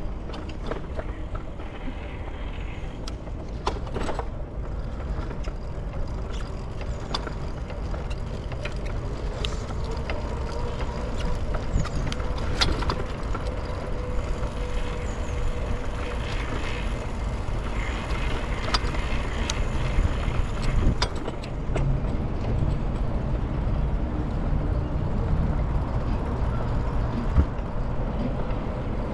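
Bicycle riding along city streets: a steady low rumble of road and wind on the microphone, with scattered rattles and clicks from the bike and a faint steady hum.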